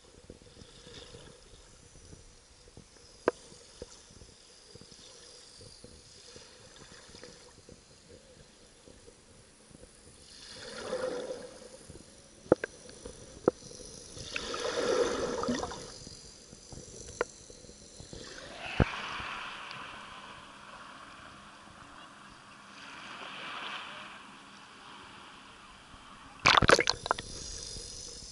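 Underwater sound through a submerged camera: muffled water movement swelling and fading several times, with scattered sharp clicks and knocks and a loud cluster of knocks near the end.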